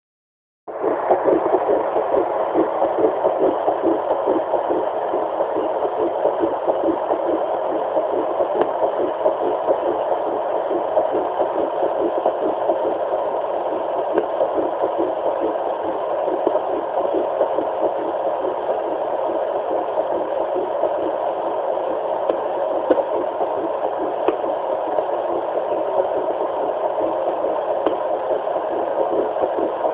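Fetal heartbeat at seven weeks two days, picked up by a Doppler monitor and heard as a fast, steady, pulsing rhythm that starts about a second in.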